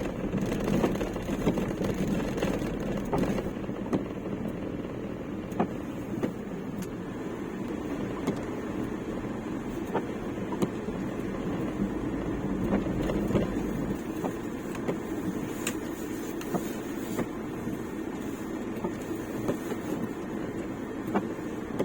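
Ford Transit camper van being driven, heard from inside the cab: steady engine and road noise with scattered sharp ticks. The deep low rumble fades about fourteen seconds in.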